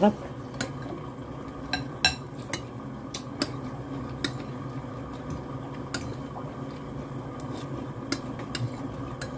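Eating sounds: a fork clinking and scraping in a glass bowl of noodles, with chewing and mouth clicks, heard as an irregular scatter of sharp clicks over a steady background hum.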